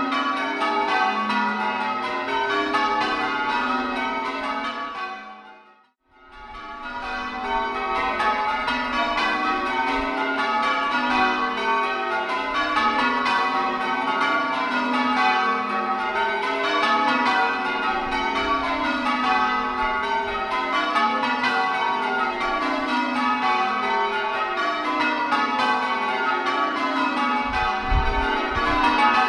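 The ring of eight church bells at Brightling, tenor about 12 cwt in F sharp, being rung full-circle in change ringing, the strokes following one another in a steady stream. The ringing fades out about six seconds in and fades back in straight away.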